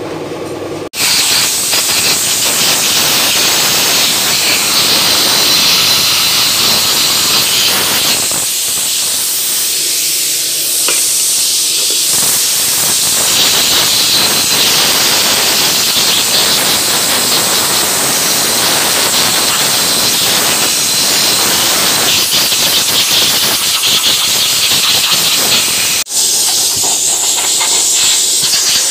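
Loud, steady hiss of a high-pressure jet played over engine parts (the EGR valve and intake manifold) as they are cleaned. It starts abruptly about a second in and cuts off briefly near the end.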